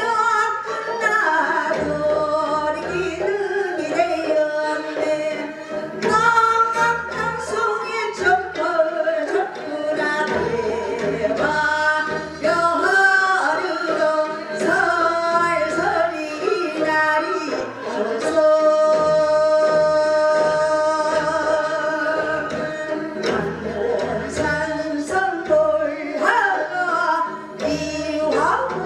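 A woman sings a Korean folk song (minyo) in a trained traditional vocal style, over a backing track with a regular low bass pulse. About two-thirds of the way through she holds one long note.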